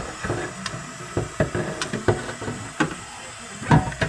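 Irregular knocks and clatter of a stainless steel water-filter tank being handled and turned in a stainless steel sink, the loudest knock near the end.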